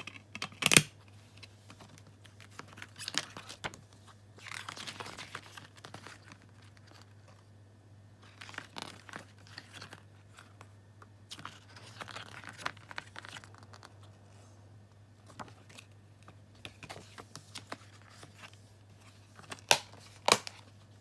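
Plastic DVD case and its paper booklet handled. There is a sharp click as the disc is pressed onto the case's hub, paper pages rustling and crinkling through the middle, and two sharp snaps near the end as the case is shut.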